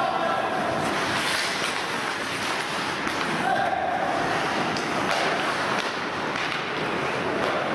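Game noise in a sports hall: players' voices calling and shouting over a steady din, with scattered sharp knocks.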